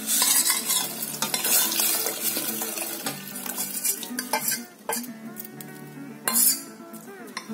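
Custard-powder batter pouring from a saucepan into bubbling hot sugar syrup in a steel pot, a liquid rush loudest for the first three seconds and softer after.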